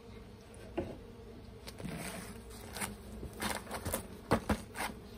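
Mandaçaia stingless bees (Melipona quadrifasciata) buzzing in their opened hive box, a faint steady hum, with irregular crackles and clicks of the plastic sheet being peeled back off the colony.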